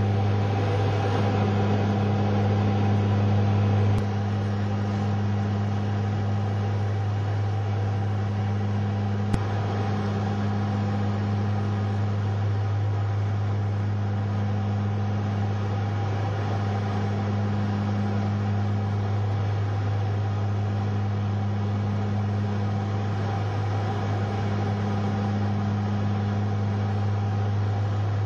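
Small propeller airliner's engines droning steadily inside the cabin: a deep hum with a slow pulsing beat every few seconds. The level drops a little about four seconds in, and there is a single click a few seconds later.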